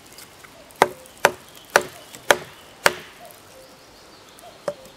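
Wooden baton striking the spine of a bushcraft knife, driving the blade into a hard ash branch to cut a figure-7 notch: five sharp knocks about half a second apart, each with a short ring, then one lighter knock near the end.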